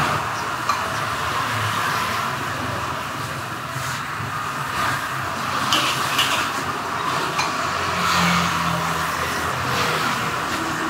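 Bakmi goreng noodles frying in a wok over a gas burner: steady sizzling and burner noise, with a few clanks and scrapes of a metal ladle against the wok.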